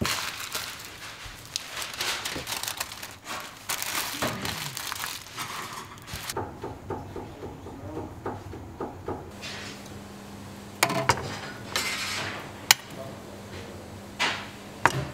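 Restaurant kitchen food-prep sounds: paper and gloved hands rustling and scraping over a steel counter as a wrap is rolled. Later a steady low hum runs under a few sharp clinks of a spoon against ceramic dishes and steel trays.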